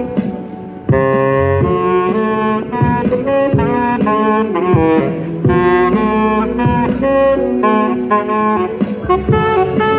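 Saxophone played live, a jazzy melody of held and moving notes over an accompaniment with a bass line underneath. The sax drops away briefly at the start and comes back in strongly about a second in.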